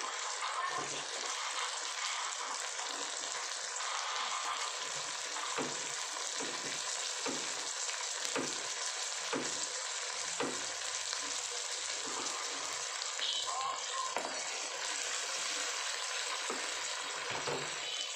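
Red chilies and garlic sizzling in hot oil in a stainless-steel wok: a steady frying hiss with scattered pops. Near the end, chopped tomatoes go into the wok and are stirred with a metal spatula.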